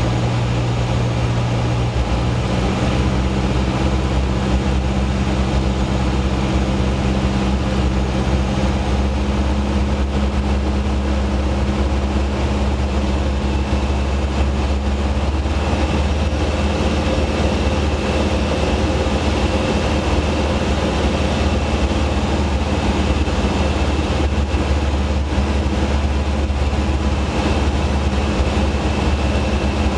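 Robin HR200 light aircraft's piston engine and propeller droning steadily, heard inside the cockpit as the aircraft descends in the circuit. The tone shifts slightly about two seconds in and again around fifteen seconds.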